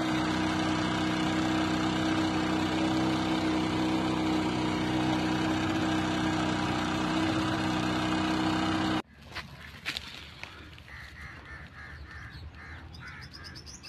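Motorboat engine running with a steady drone and water rushing past, cut off abruptly about nine seconds in. After it, at a quieter level, a bird calls in a quick run of short repeated notes.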